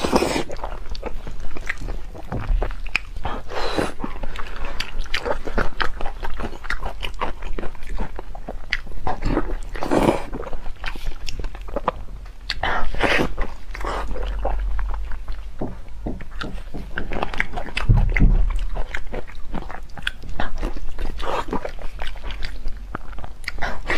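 Close-miked eating of spicy beef knee bone with tendon and cartilage: biting, wet chewing and mouth smacking in a quick, dense run of clicks and squelches, sped up to double speed.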